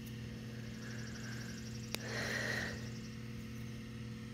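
Quiet outdoor background: a steady low hum, a high, fast-pulsing trill lasting about two seconds from about a second in, and a single sharp click near the middle.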